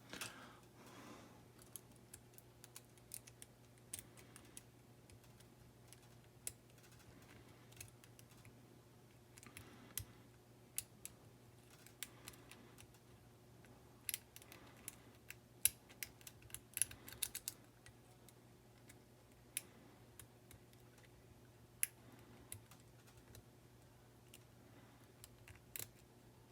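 Faint, irregular clicking and tapping of lock picks working the pins of an ERA rim cylinder, with a steady low hum underneath.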